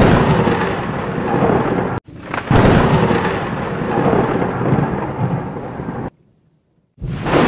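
Thunderstorm sound effect: thunder rumbling over a steady rain hiss, with a sharp thunderclap about two and a half seconds in. The sound cuts off abruptly about six seconds in, leaves nearly a second of silence, then starts again loud near the end.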